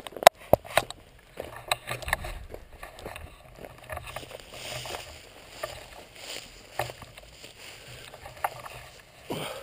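Handling noise from a camera mounted on a shotgun barrel as the gun is swung about: scattered clicks, knocks and rubbing, with a sharp knock about a quarter second in.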